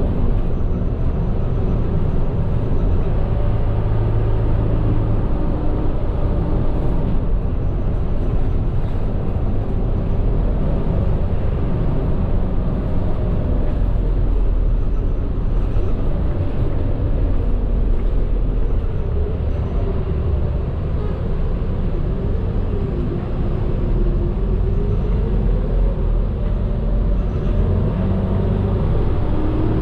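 Medium bus engine and road noise heard inside the driver's cabin while driving: a steady low rumble, with the engine's pitch rising and falling as the bus changes speed.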